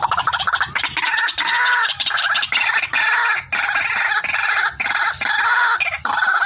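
White-breasted waterhen calling without pause, a fast stream of repeated, pulsed notes. The uploader presents it as the female's call, used as a lure.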